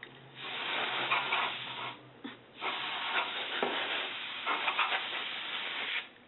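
Can of compressed air spraying in two bursts, about a second and a half and then about three and a half seconds, blowing dust out of the inside of an overhead projector.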